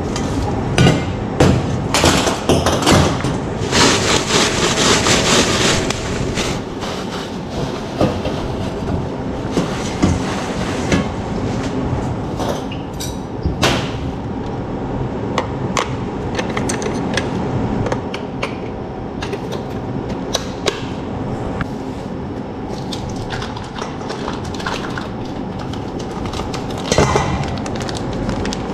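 Stainless steel bowls and hand-mixer beaters clinking and knocking on a stainless steel worktable, with a hiss lasting about two seconds a few seconds in, over a steady low hum.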